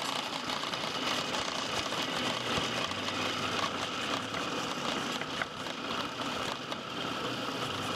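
Food processor motor running steadily, its blade grinding soaked almonds, peanuts and dates with a gritty crackle as they are broken down into a paste.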